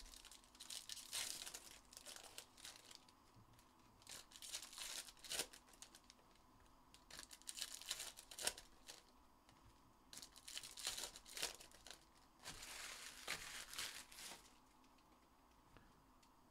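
Foil trading-card pack wrappers crinkling and tearing as packs are ripped open, in about five bursts of a second or two each.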